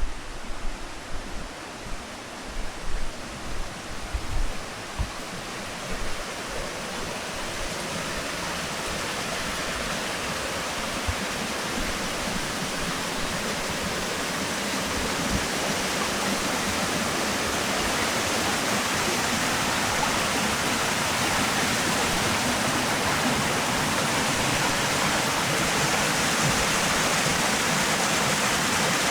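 Spring-fed stream rushing, growing louder over the first several seconds and then holding steady. A few low thumps come in the first few seconds.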